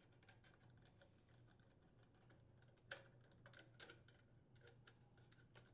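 Near silence with faint, scattered metallic ticks from a hand socket driver unthreading small screws from a Briggs & Stratton engine's cylinder head shield. The clearest tick comes about three seconds in, with a few more soon after.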